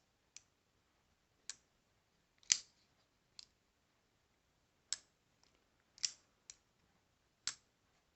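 Kizer Mini Sheepdog folding knife being worked open and shut by hand: about nine sharp, crisp clicks of the blade and lock, spaced unevenly.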